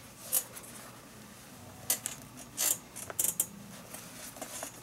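Pliers working a leather lace out of the lace holes of a baseball glove: about half a dozen short, sharp clicks and scrapes, a cluster of them a little past the middle.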